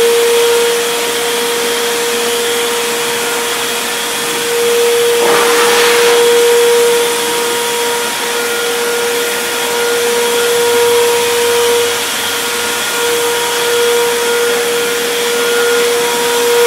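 Small handheld electric vacuum-blower running steadily, blowing sawdust off a workbench top: a high, even motor whine over a rush of air. About five seconds in, the rush of air briefly grows louder.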